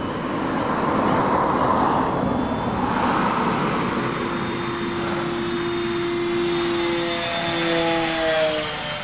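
Electric motor and propeller of an 800 mm RC Corsair in flight. A rush of noise over the first few seconds gives way to a steady whine that drops in pitch near the end as the plane passes by.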